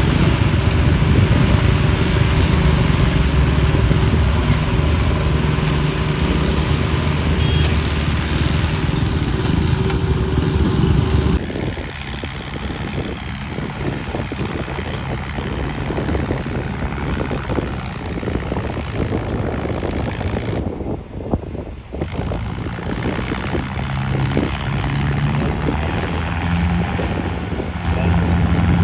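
Heavy diesel engines of a tractor and a backhoe loader running close by, a steady deep hum. About a third of the way in the sound drops to a quieter, rough gusty rumble with a distant tractor engine under it. Near the end the Mahindra Arjun 555 tractor's diesel engine grows louder as it hauls a loaded trolley up the track.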